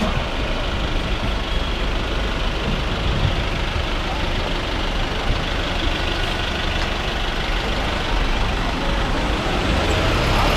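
Steady road traffic noise on a wet street: heavy vehicle engines such as buses and trucks running or idling close by, over a continuous hiss and a low rumble.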